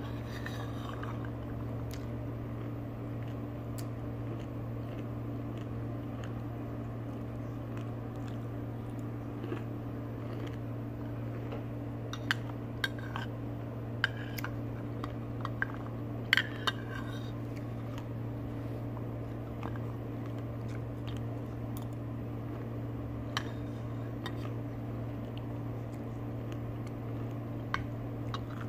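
A metal spoon clinking and scraping against a bowl now and then as someone eats from it, most of the clinks coming around the middle, over a steady low hum.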